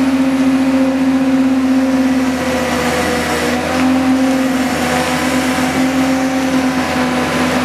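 Heavy diesel machinery running steadily with a loud drone, its pitch sagging briefly about three seconds in, as a tipped tanker truck is pulled free on a chain.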